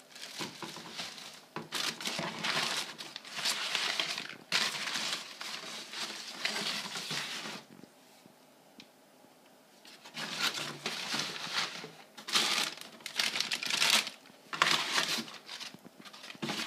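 Crumpled brown kraft packing paper rustling and crinkling as it is handled and pulled about in a cardboard box, in irregular bursts, with a quiet pause of about two seconds midway.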